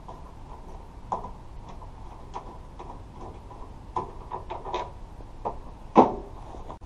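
Hand ratchet wrench clicking in short irregular runs as a bolt on the tailgate-assist bracket is turned, with a louder knock near the end.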